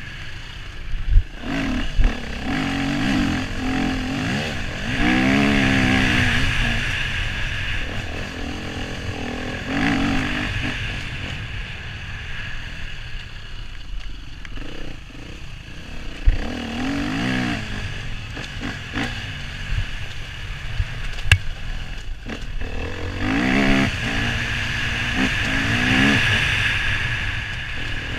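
Husqvarna FE 250 four-stroke single-cylinder dirt-bike engine revving up and backing off again and again as it is ridden over a dirt track, heard from the rider's helmet. A few sharp knocks cut through it.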